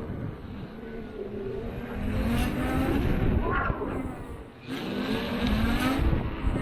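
KingSong S22 electric unicycle accelerating hard: a grinding, plastic-sounding buzz that rises in pitch, in two surges with a brief drop between them. The owner attributes the noise to the mudguard resonating at about 25–28 km/h rather than to the motor, and takes it to be apparently normal. Low wind rumble on the microphone runs underneath.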